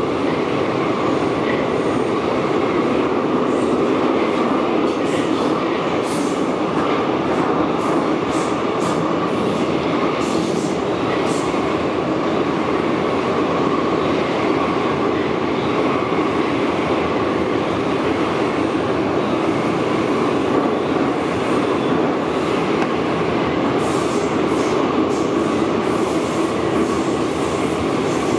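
Interior of a Santiago Metro AS-02 train car running at speed through a tunnel: a steady, loud rumble of wheels on rail and running gear heard inside the cabin, with brief high-pitched streaks of sound here and there.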